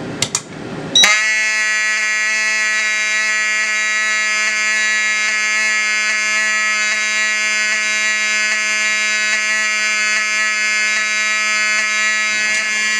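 Wheelock 7002T mechanical fire alarm horn sounding continuously: a loud, steady buzzing tone that starts about a second in, after a couple of clicks from a pull station being pulled.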